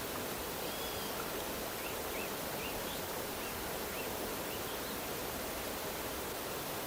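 Steady, even rush of a waterfall. A series of faint, short, high chirps sounds over it through the first few seconds.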